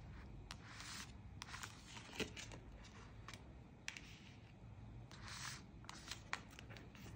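Tarot cards being handled: a few faint, soft swishes of a card sliding off the spread deck and onto the table, with scattered light clicks.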